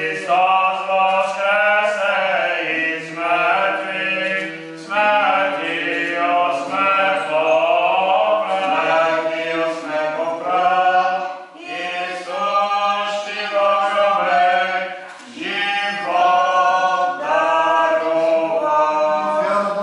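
A cappella church choir singing Eastern Orthodox liturgical chant in several voices over a sustained low held note, with short breaths between phrases.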